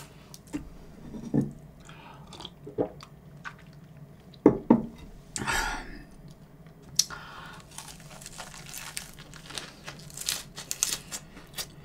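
Close-miked eating of a lettuce wrap of rice and ssamjang: crisp crunching of the fresh leaves and wet chewing, with a rustle of leaves about halfway and the crunching densest near the end.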